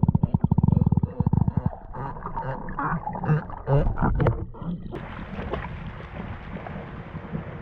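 Galapagos sea lions calling underwater: a fast buzzing train of low pulses, then a run of short moaning, bark-like calls. About five seconds in the sound cuts to a steady hiss of shallow water at the surface.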